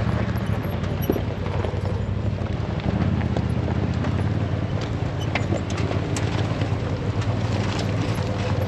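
Polaris RZR side-by-side's engine running steadily on the move, with wind on the microphone and scattered sharp clicks and knocks.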